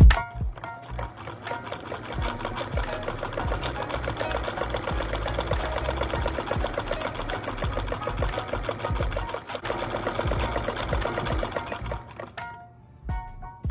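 Singer 99-13 sewing machine, its electric motor run by the knee lever, stitching at a steady, even rapid rate and stopping near the end.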